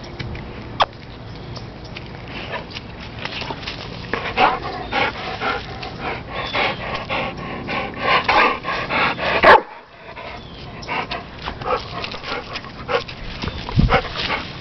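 Dog barking and yipping in a string of short barks, busiest from about four seconds in and ending on the loudest bark about nine and a half seconds in.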